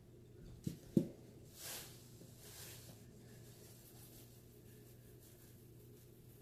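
Two light knocks about a second in, then a soft rustling hiss as Morton coarse salt is poured from its cardboard box into a metal teaspoon.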